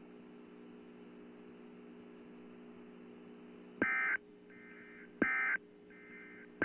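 Emergency Alert System SAME end-of-message data bursts on NOAA Weather Radio: a few seconds of steady low hum of dead air, then two short, buzzy digital tone bursts about a second and a half apart, with a third just beginning. They mark the end of the required weekly test.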